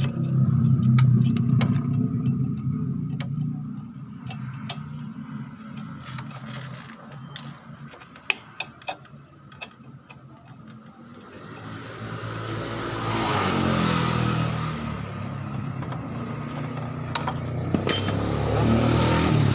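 Motorcycle engine running, fading down after the first few seconds, then swelling up again about twelve seconds in and near the end. In the quieter middle there are scattered small metallic clicks.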